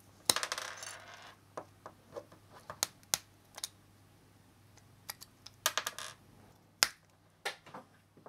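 Small flush cutters snipping and prying apart the tiny stacked circuit boards of a USB-C charger: scattered sharp clicks and snaps, with a scraping sound in the first second, a cluster of clicks around five to six seconds in and the loudest snap about seven seconds in.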